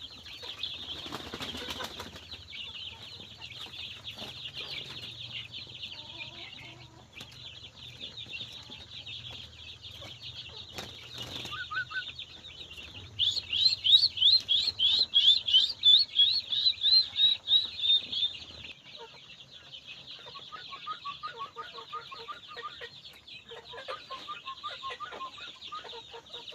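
Yellow-vented bulbul calling: a loud run of about fifteen quick rising chirps at about three a second in the middle, then softer chattering notes, over a steady high-pitched buzz.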